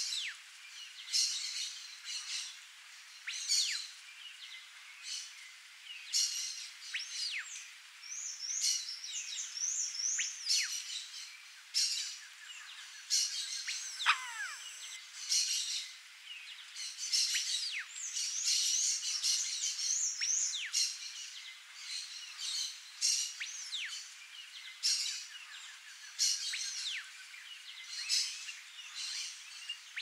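Bird calls: thin, high whistles that slide downward, the loudest sweeping far down about halfway through, which fit a frightened female bare-faced curassow's alarm whistles. Other small birds' chirps and two fast warbling trills run through.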